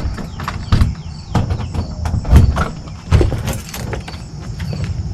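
A series of irregular knocks and clunks, as of objects being handled and set down, over a steady high trill of insects.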